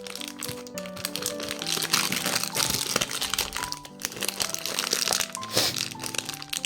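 Plastic biscuit wrapper crinkling and crackling as it is handled and pressed in a bag sealer, over background music.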